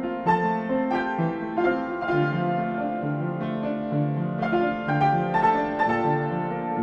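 Piano music: an unhurried melody of struck notes and chords.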